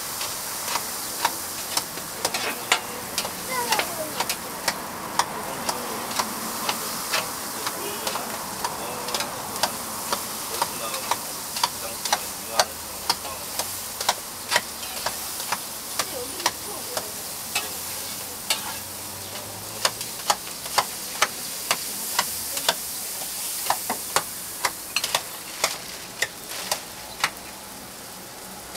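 Griddle toast sizzling, with frequent sharp taps and clicks of cooking utensils scattered unevenly throughout.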